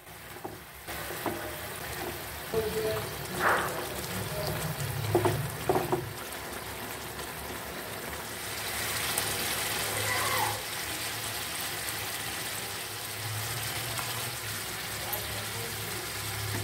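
Fish curry simmering in a pan, a steady bubbling sizzle as the spiced gravy cooks down thick. A few short clinks come in the first half, and the sizzle grows brighter for a couple of seconds about midway.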